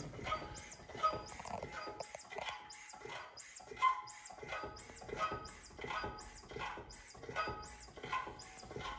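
Hand-pumped hydraulic shop press being worked, with a short squeak and click at each pump stroke, about three strokes every two seconds, as the ram presses a new wheel bearing into a Porsche 996 front wheel carrier.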